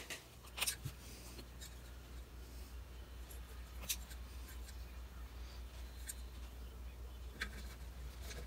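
Wire strippers snipping and stripping the leads of a new CRT socket: a few sharp snips several seconds apart, over a steady low hum.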